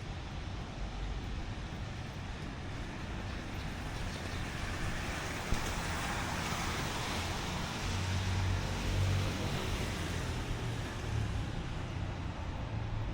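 A road vehicle passing on a wet street, its tyre hiss and engine hum swelling to a peak about seven to nine seconds in and then fading, over steady street noise.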